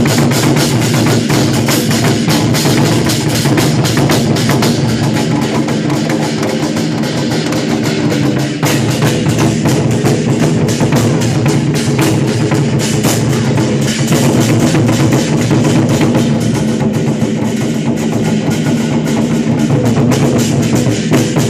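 A Taiwanese war drum troupe playing rapid, continuous drumming on large drums.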